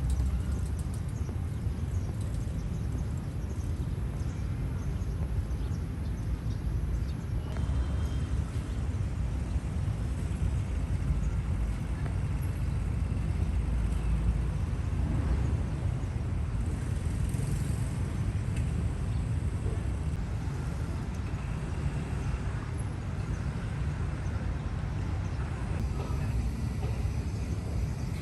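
Steady low rumble of city street traffic, heard as an outdoor field recording.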